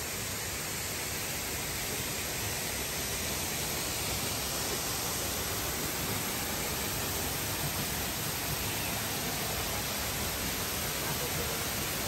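Steady rushing of a waterfall, an even, unbroken hiss of falling water.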